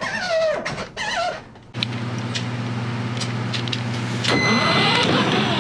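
Electric drive motors and gearboxes of a kids' ride-on toy truck starting about two seconds in and running with a steady hum, growing louder with a whine a couple of seconds later. A high voice is heard just before the motors start.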